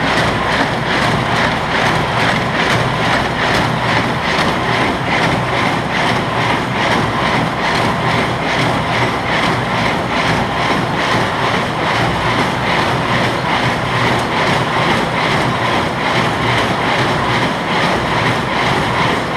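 New Holland 275 square baler running at PTO speed, its finger feed and plunger working with a steady, rhythmic clatter over a steady low engine drone.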